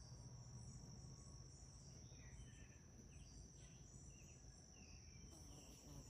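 Faint summer outdoor ambience: insects keep up a steady high-pitched drone, with a few short chirps scattered through and a low rumble underneath.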